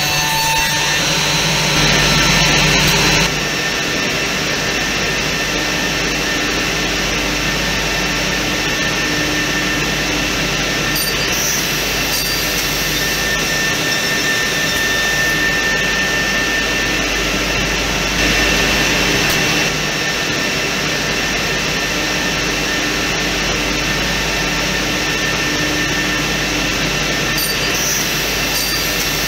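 Industrial CNC door edge-forming machine running steadily: a continuous mechanical whir and hiss with a steady whine. It is louder for the first few seconds and again for a moment about two-thirds of the way through, with a few faint clicks.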